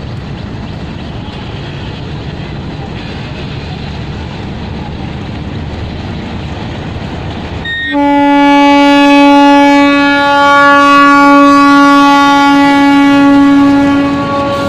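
Diesel locomotive of a passenger express approaching with a steady low rumble on the rails. About halfway through its horn sounds abruptly, one long, loud, steady blast held as the locomotive passes close by.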